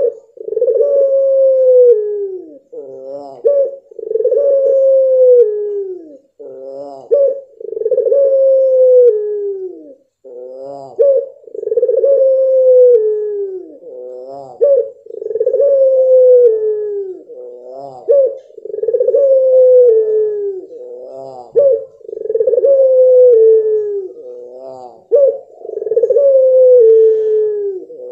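Puter pelung dove giving its long-drawn crying coo over and over, about every three to four seconds. Each call is a short wavering lead-in followed by a long note that slides down in pitch.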